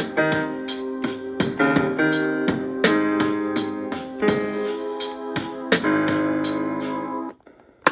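A beat playing back from an Akai MPC Live's stock sounds: sustained electric-piano-style keyboard chords with sharp, evenly spaced high ticks over them. It cuts off suddenly about seven seconds in.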